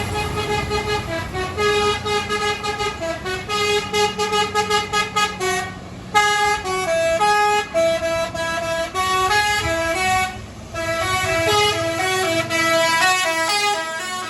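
Tour bus's Basuri 'telolet' musical horn playing a tune of quick stepped notes, breaking off briefly twice, over the bus's engine running.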